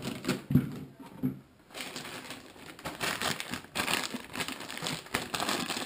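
Packaging around a scooter deck crinkling and rustling as it is unwrapped, with a sharp knock about half a second in.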